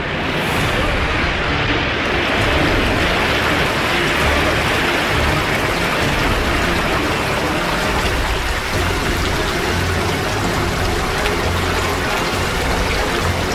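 Rushing-water sound effect from the projection-mapping show's soundtrack: a steady wash like a stream or heavy rain, with a deep rumble underneath.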